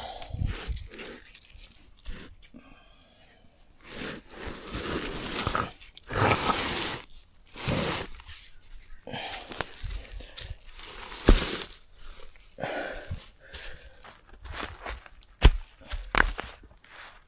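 Large flat rocks being lifted, shifted and set down by hand on dry leaves and soil: irregular scraping and crunching rustles, with a few sharp knocks, the loudest about a third of the way in and again near the end.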